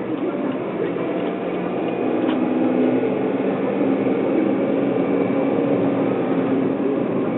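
Car engine hum and road noise heard from inside the moving car's cabin. The engine's steady drone gets a little louder about two seconds in.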